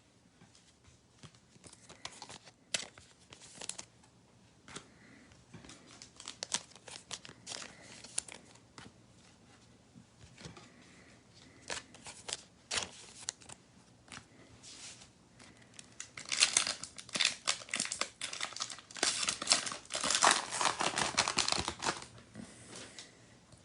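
A plastic trading-card pack wrapper crinkling and being torn open, with scattered small rustles and clicks of cards being handled first. The loudest, densest crinkling and tearing comes in the last third.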